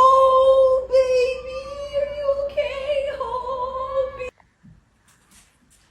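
A woman singing one long, held operatic note that wavers slightly and cuts off abruptly about four seconds in, followed by faint soft ticks.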